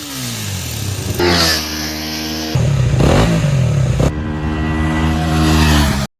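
KTM Duke 250's single-cylinder engine heard through its exhaust in a few short cut-together clips: the revs drop, then rise and hold, then run steadily at higher revs, cutting off abruptly at the end.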